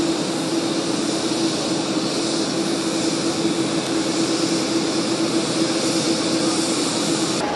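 Steady jet whine and rushing noise of a parked airliner on the apron, a constant hum with a hiss above it.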